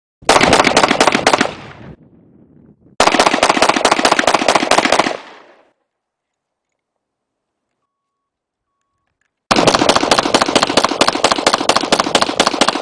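Automatic gunfire: three long bursts of rapid shots, the first about a second and a half long, the second about two seconds, and the third starting near the end and running on. The first two each fade out in a short echo.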